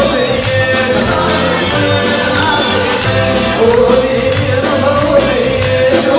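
Live Chaoui band music with drums and keyboard playing a steady beat, and a voice singing over it.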